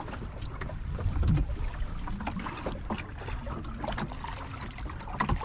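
Water splashing and lapping against the hull of a small wooden John Welsford Navigator sailing dinghy under way, over a steady low rumble, with a louder swell about a second in.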